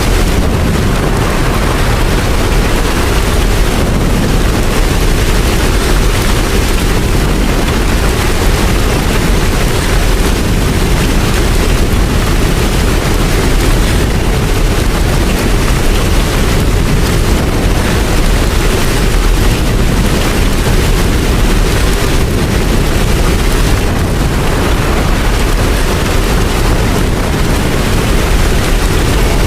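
Steady, heavy rain with a deep low rumble underneath, running evenly without a break.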